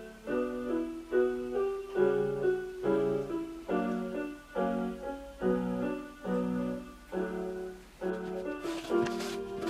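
Piano music: a melody over chords, with a note or chord struck about every half second. A few short noises join in near the end.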